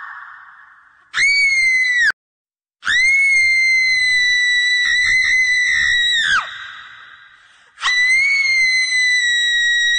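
Shrill, drawn-out screams. A short one about a second in cuts off abruptly. A long one from about three seconds in wavers midway and drops in pitch as it ends, trailing off in a fading echo. Another begins near the end.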